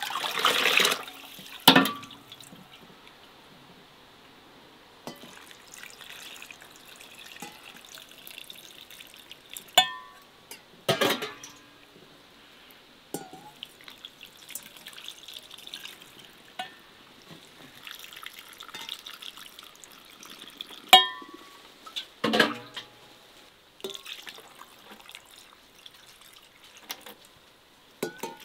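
Liquid poured from an enamel ladle into large glass jars of stuffed peppers, trickling and splashing, with a few sharp knocks and clinks of the ladle against the jar and basin.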